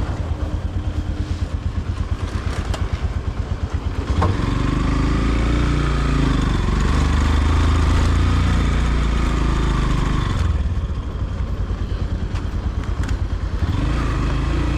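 Motorcycle engine running while being ridden, its low note pulsing at first; from about four seconds in it gets louder, its pitch rising and falling as it pulls, then it eases off near ten seconds.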